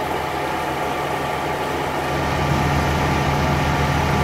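Heavy diesel engine running steadily at idle with a low even hum, getting slightly louder about two seconds in.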